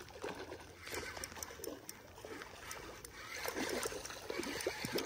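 Light, irregular water splashing that grows busier over the last second or so: a hooked speckled trout thrashing at the surface as it is brought in.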